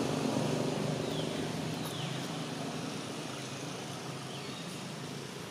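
A motor vehicle's engine running at a steady low hum, slowly fading as it moves away, with a few faint, short, high falling chirps over it.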